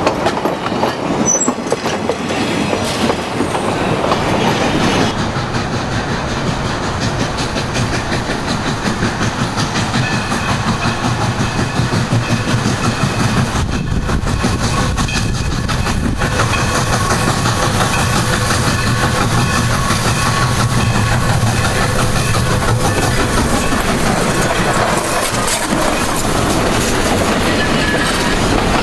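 A train running past at close range, its wheels clicking rapidly over the rails over a steady low rumble. The train is hauled by Southern Pacific #2472, a 1921 Baldwin 4-6-2 Pacific steam locomotive.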